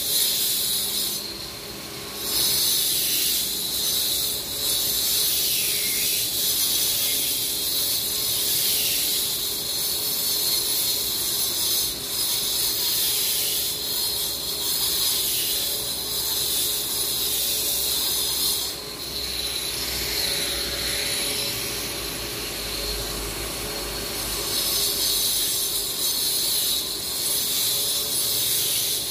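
A handheld power tool working the asphalt of a road cut: a steady high-pitched mechanical noise that dips briefly about two seconds in and again around nineteen seconds.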